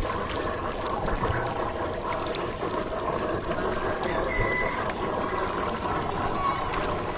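Muddy water sloshing and splashing in a shallow, drained fish pond as a man wades through it, a steady wash of sound.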